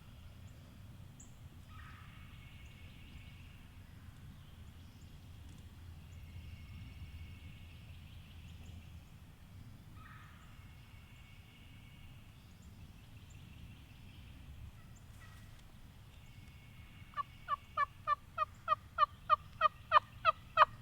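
Wild turkey calls: a run of about a dozen sharp yelps, evenly spaced at about three a second, getting louder, in the last few seconds, over faint birds and insects.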